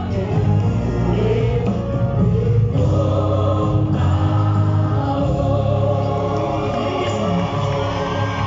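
Gospel choir singing, with long held notes over a steady low accompaniment.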